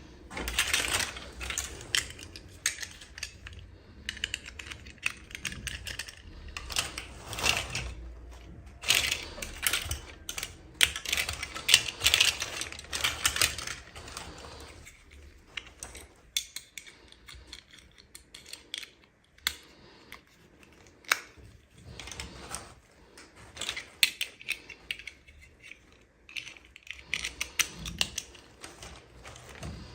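Hands handling and opening toy packaging and small plastic doll pieces: irregular clicks and rustling, busier and louder in the first half, sparser after.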